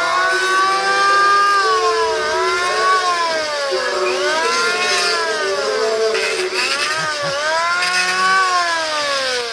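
Electric hand planer running as it is pushed along a wooden plank, its motor pitch dipping and climbing back again several times over the passes.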